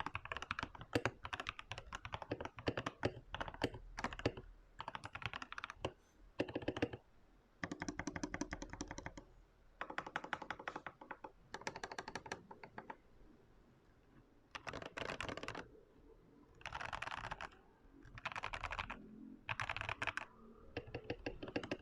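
Typing on a TM680 mechanical keyboard with clicky Feker blue switches, foam-, tempest- and bandaid-modded. Steady typing gives way after about six seconds to a series of rapid bursts of keystrokes, each about a second long, with short pauses between.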